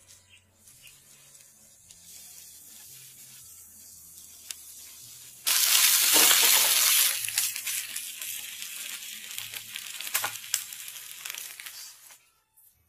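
Eggs cooking faintly in a nonstick frying pan. About five and a half seconds in, a loud sizzle of beef bacon frying in the hot pan starts abruptly and slowly dies down, with a few light clicks of the silicone spatula.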